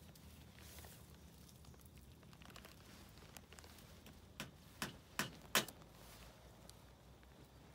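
Four sharp knocks in quick succession about halfway through, the last the loudest, from hand work on a bamboo-and-thatch hut frame.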